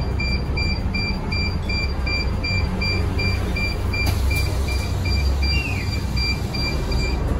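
Mitsubishi Fuso FE84 city bus running along the road, a steady low engine and road rumble heard from inside the cab. Over it, an electronic beep repeats about twice a second and stops near the end.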